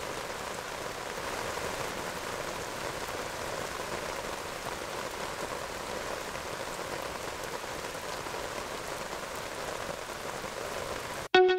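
Steady rain falling on the campsite. Music cuts in abruptly at the very end.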